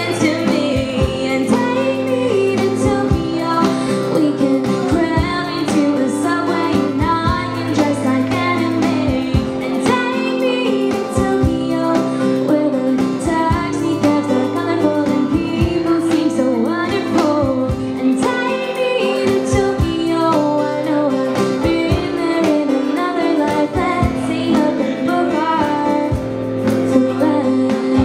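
Live acoustic folk-pop: a woman sings the melody over her strummed acoustic guitar, with a cajon tapping out the beat under her.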